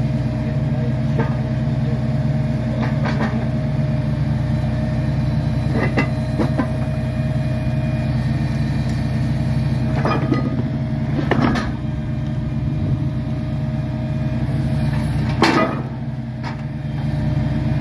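A heavy engine idling steadily, with a handful of sharp knocks scattered over it, the loudest about fifteen seconds in.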